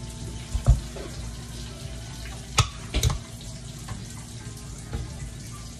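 A hand potato masher slapping down into boiled potatoes in a bowl, giving four knocks. The loudest knock comes about a second in.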